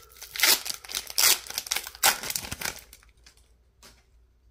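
Wrapper of an Upper Deck hockey card pack being torn open and crinkled by hand: a run of crackling rustles that stops about three seconds in.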